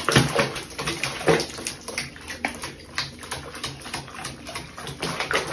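Water splashing and sloshing in a basin of foamy bath water as a wet cat moves about in it, in short irregular splashes.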